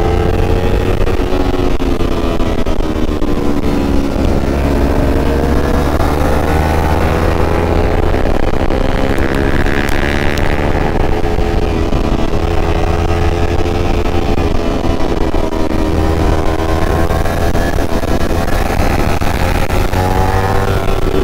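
Kawasaki ZX-25R's 249 cc inline-four engine running at high revs while riding, its pitch rising and falling with the throttle. A steady rumble of wind on the microphone runs underneath.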